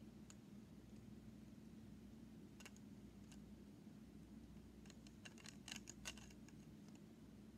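Faint clicks and taps of plastic Lego pieces being handled and fitted over quiet room tone: two single clicks, then a quicker run of clicks about five to six seconds in.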